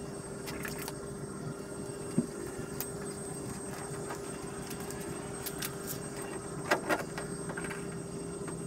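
Scattered clicks and scrapes of a knife blade being worked through cured windshield urethane, over a steady hum; a pair of sharper clicks about seven seconds in is the loudest.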